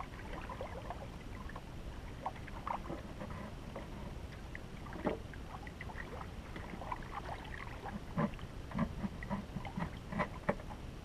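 Water lapping and slapping against the hull of a small outrigger canoe, with scattered small splashes and knocks, a few more of them near the end.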